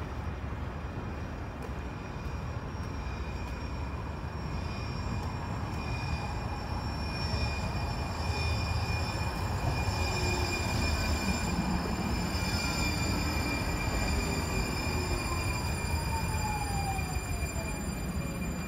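Tide light-rail train, a Siemens S70 electric tram, passing close by on street track. A steady rolling noise with high electric whines, and over the second half a whine that falls slowly in pitch.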